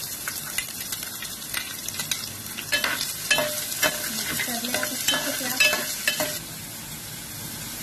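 Chopped onion frying in hot oil in a steel kadai with peanuts and curry leaves, a steady sizzle, with a utensil scraping and clicking against the pan as it is stirred. The stirring stops about six seconds in, leaving only the quieter sizzle.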